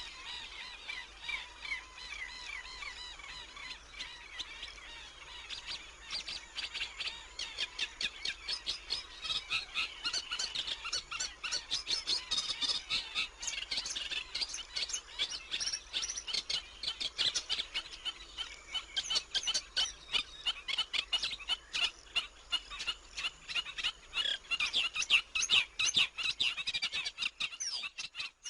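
Many small birds chirping and calling at once in a dense chorus, growing busier about a quarter of the way in, over a faint steady rush of river water.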